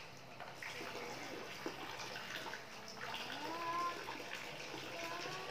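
Water splashing and sloshing in a plastic washbasin as a toddler sitting in it moves her hands through it. A short rising call sounds about three and a half seconds in.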